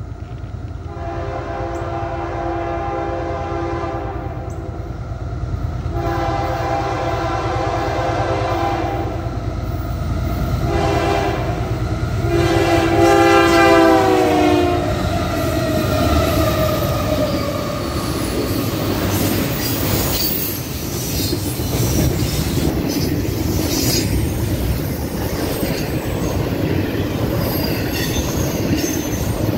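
Freight train led by Union Pacific diesel locomotives sounds its multi-chime air horn in four blasts: long, long, a shorter one, then long, the grade-crossing warning pattern. The last blast drops in pitch as the locomotives pass close by. Locomotive engine rumble then gives way to the steady roll and clack of double-stack container cars' wheels on the rails.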